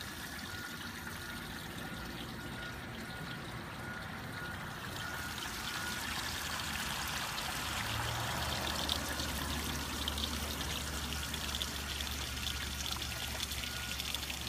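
Water pouring and trickling steadily into a flood-and-drain hydroponic tank, getting louder about a third of the way in.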